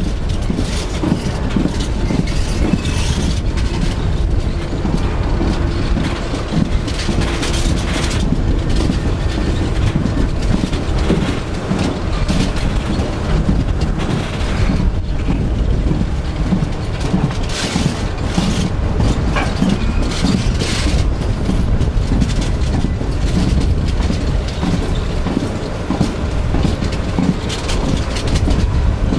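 Alaska Railroad passenger train running along the track, with a steady rumble and continual clacking of the wheels over the rails. A faint steady whine sounds during the first ten seconds or so.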